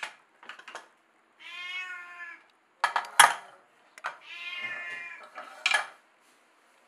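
Sharp metallic clinks and clanks of a pressure cooker's lid and pot, the loudest a little after three seconds in. Between them come two drawn-out pitched cries of about a second each.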